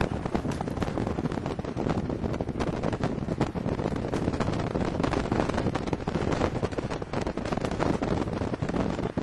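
Wind buffeting the camera microphone: a loud, gusty rumble with crackles all through.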